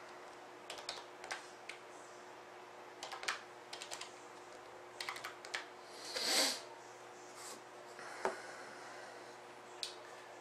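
Computer keyboard being typed on in short scattered runs of keystrokes, with a brief soft hiss about six seconds in and a couple of single clicks near the end.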